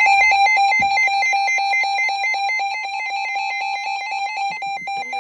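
Electronic emergency alert attention tone, a high steady-pitched beep pulsing rapidly and evenly, signalling that an alert message is about to follow.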